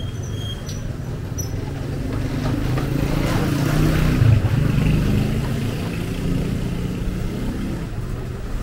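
A motor vehicle passing along the street: its engine grows louder, is loudest a little after four seconds in, then fades away.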